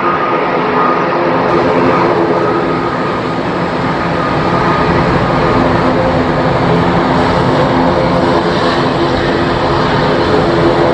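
Aircraft engines running steadily with a sustained whine of several tones, over a constant hiss of heavy rain.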